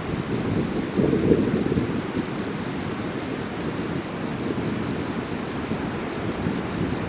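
Wind buffeting the microphone: a rough, low rumble that swells in a gust about a second in, then settles.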